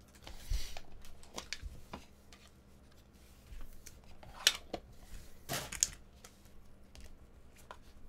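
Scattered clicks, taps and rustles of hands working a small clear plastic card case apart and handling its foam inserts. Two louder, brief scraping rustles come about four and a half and five and a half seconds in.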